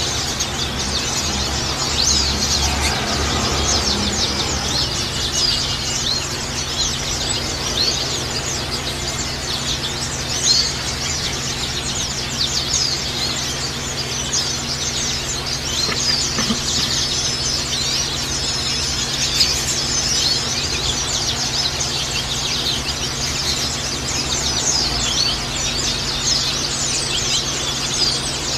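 White-eyes (pleci) chirping and twittering in a dense, continuous stream of rapid high notes: a lure recording used to set caged white-eyes singing. A steady low hum runs underneath.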